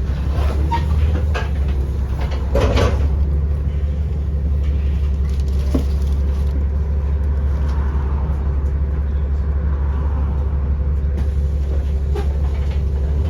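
Volvo B7RLE bus's six-cylinder diesel engine running, a steady low drone, with a few knocks and rattles in the first three seconds and a faint steady whine from about five seconds in. The uploader says the engine has bad injectors.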